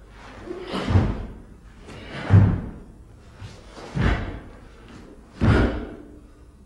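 A karateka's kata movements: four sharp thuds with swishes about a second and a half apart, bare feet landing on a wooden floor and the cotton gi snapping with each technique. The second stroke is the loudest.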